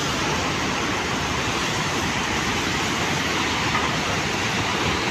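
Steady rush of turbulent water where discharge from a hydroelectric dam's outlets churns the river, an even noise without breaks.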